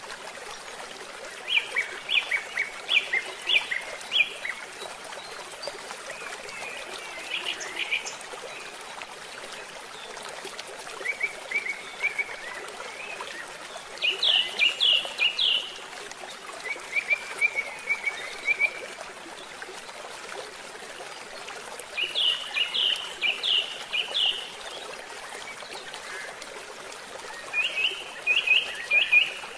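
Water pouring out of a culvert pipe into a channel, a steady rushing wash, with a songbird singing short phrases of several quick chirps every few seconds, louder than the water.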